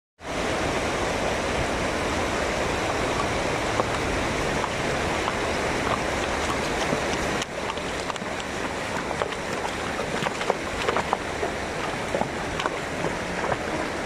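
Shallow river rushing over stones and gravel in a steady flowing hiss. After a cut about seven seconds in the flow is a little quieter, with scattered sharp splashes and clicks as a horse wades through the shallows.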